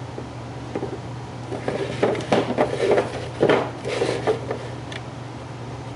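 Hollow HDPE plastic hockey helmet shells knocking and scraping against each other and the wooden workbench as they are handled. An irregular run of clatters comes about two to five seconds in.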